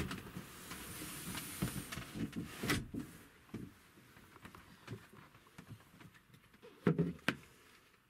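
Faint rustling and small clicks of handling, with a sharper knock just before the three-second mark. Then two sharp knocks close together about a second before the end.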